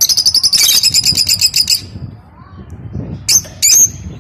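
Lovebirds chattering: a rapid, loud run of high-pitched twittering for nearly two seconds, then two short shrill calls a little after the three-second mark.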